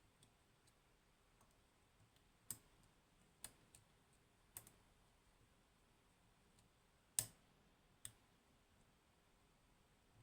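Lock pick and tension tool working the pins of a 15-pin Codkey Locksys lock, giving about six faint, sharp clicks at uneven intervals. The loudest click comes about seven seconds in.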